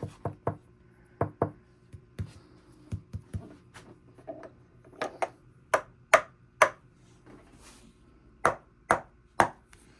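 Knocking on the workbench, over a dozen sharp, irregularly spaced raps; the loudest come in the second half, and some ring briefly. The knocks test how much the sound-deadened bench still resonates.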